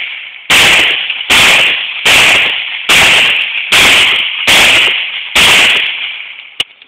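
CZ-52 pistol in 7.62x25mm Tokarev fired seven times at a steady pace, just under a second between shots, each report trailing off in an echo before the next. A single faint click follows near the end.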